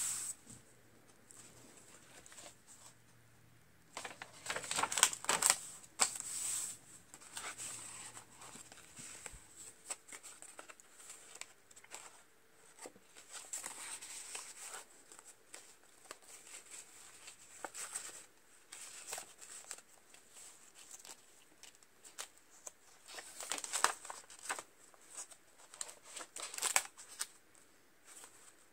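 Paper rustling and page turns as the stiff pages of a spiral-bound journal are leafed through and journaling cards are handled, in scattered bursts with quieter gaps between.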